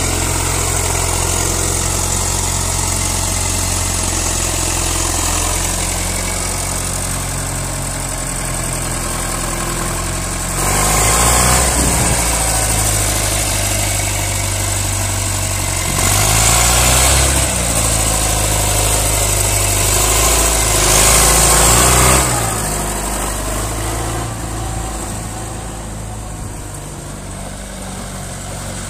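Leyland 272 Synchro tractor's four-cylinder diesel engine running, revved up three times, about a third, just over half and three-quarters of the way through, as it pulls away. The sound grows fainter near the end as the tractor moves off.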